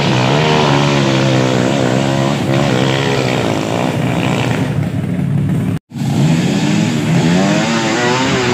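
Dirt-bike engines revving up and down under load as the bikes climb a muddy slope. About six seconds in, the sound cuts out completely for a moment, then the engines are back.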